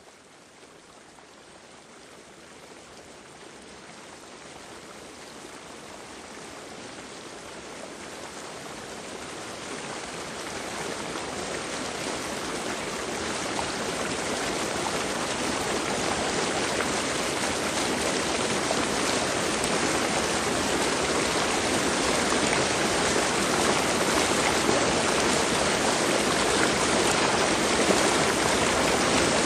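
Continuous running water, an even rushing flow with no distinct drips or splashes, fading in gradually over the first fifteen seconds or so and then running steadily.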